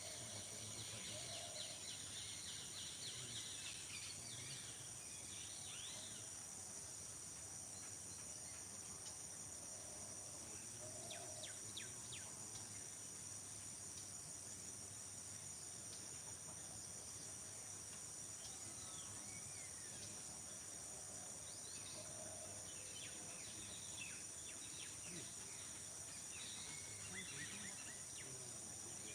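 Faint field ambience: a steady high-pitched drone of insects, crickets by the sound of it, with scattered short bird chirps over it.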